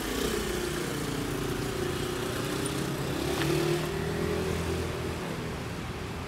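Street traffic: a motor vehicle's engine running past, its pitch dipping and holding, then rising briefly a little over three seconds in, where it is loudest.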